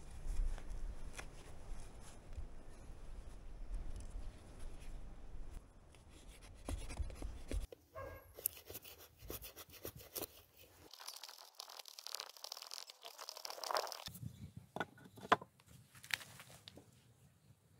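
Hand-shaping a wooden axe handle. First comes faint rubbing with the cloth-wrapped handle, under low wind rumble on the microphone. After a cut, a blade shaves the wood in short, scraping, tearing strokes, and a few sharp clicks follow near the end.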